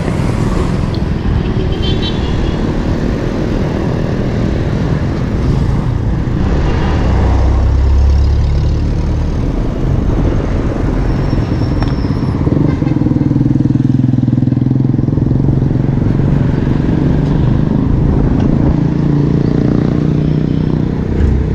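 Road traffic on a busy highway: cars and motorcycles passing close by, with a heavy rumble about seven seconds in and a steady engine hum through the second half.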